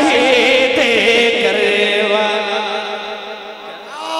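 A man singing a manqabat, a devotional Urdu song for Imam Hussain, in one long drawn-out phrase with wavering vibrato. It settles onto a lower held note and fades away about three and a half seconds in.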